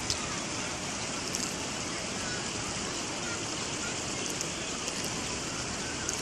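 Steady rushing of a shallow river flowing over stones, with faint distant voices.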